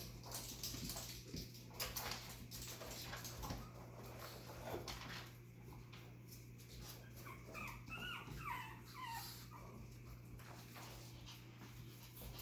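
Young Chihuahua puppies whimpering, a run of short high whines about seven to nine seconds in, amid soft scuffling and clicking as they move about.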